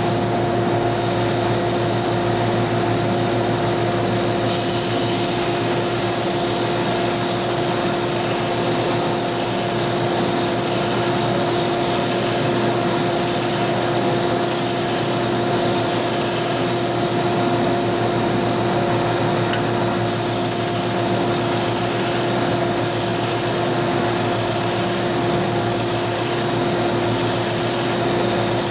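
A Delta belt and disc sander and its dust collector running with a steady hum and a whine. A few seconds in, wood pressed against the sanding belt adds a hissing, scraping noise in regular strokes about once a second as it is moved back and forth across the belt, stopping for a few seconds past the middle.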